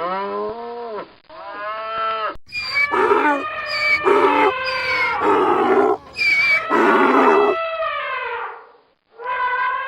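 Animal call sound effects: a cow's moo trails off at the start and a second lowing call follows, then a donkey brays several times, its calls swinging between a high wheeze and a low rough tone. The calls stop about a second before the end and a new call starts just after.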